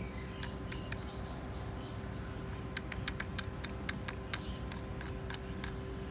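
Scattered light clicks and taps of small motor parts being handled, over a steady faint hum.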